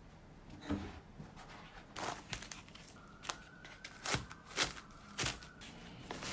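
Plastic cling film being pulled off a foam meat tray, crinkling and rustling in a string of sharp crackles.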